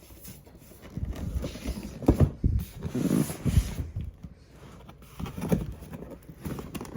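A cardboard gift box being handled while someone tries to open it: irregular bumps, knocks and rubbing.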